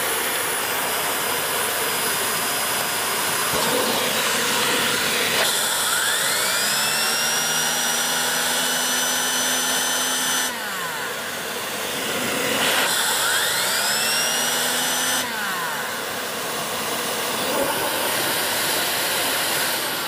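Vax Mach Air 1200 W corded vacuum cleaner running steadily and driving a turbo brush tool. Twice a whine rises in pitch and levels off as the air turbine spins the brush roll up, then drops away. The first run lasts about five seconds, the second about half as long. The brush spins very fast on this machine's airflow.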